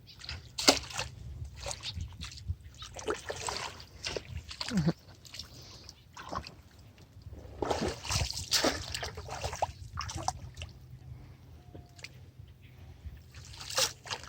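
Water splashing and sloshing in irregular bursts, with trickling between them, as fish are caught.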